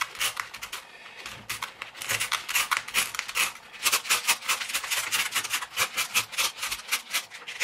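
Emery cloth rubbed back and forth by hand against a small stainless steel knife part, making quick rasping strokes that smooth away rough edges and sharp jimping. The strokes are faint at first and grow louder and more regular about four seconds in, at roughly three to four a second.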